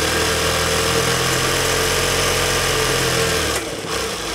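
Industrial sewing machine running at speed with a steady hum, stitching along a narrow fabric strap. The stitching stops about three and a half seconds in.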